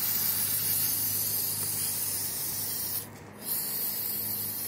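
Aerosol brake cleaner spraying into a reusable oil filter housing in a steady hiss. It breaks off briefly about three seconds in, then sprays again until near the end.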